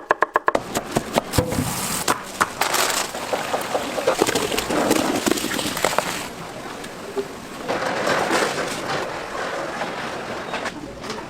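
Street food being cooked: irregular knocks and clatter of utensils over a steady hiss, which swells twice.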